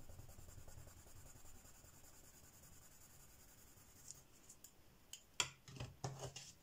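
Faint scratching of a Derwent Lightfast coloured pencil shading on paper, then several sharp clicks and taps from about four seconds in, the loudest about a second later, as the wooden pencils are set down and the next one is picked up.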